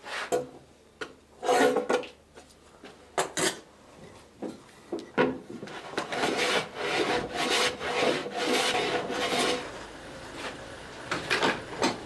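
Strokes of a hand tool scraping and rubbing along the edge of a wooden case side, cleaning off dried sealer dribbles. A few separate strokes come first, then a quicker run of strokes over several seconds, and a couple more near the end.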